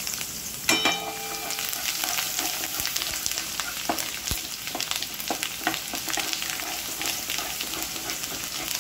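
Finely chopped garlic frying in hot oil in a metal kadai: steady sizzling and crackling, with a spatula stirring and scraping the garlic around the pan. A short metallic ring sounds about a second in.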